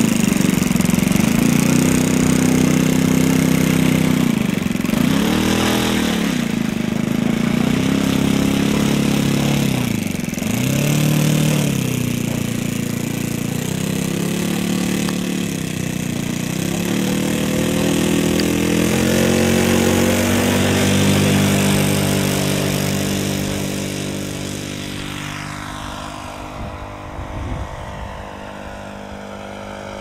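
O.S. 95 four-stroke engine of a radio-controlled de Havilland Gipsy Moth model running as it taxis over grass, its pitch rising and falling several times as the throttle is worked. It then settles into a steady note and fades over the last several seconds as the model climbs away.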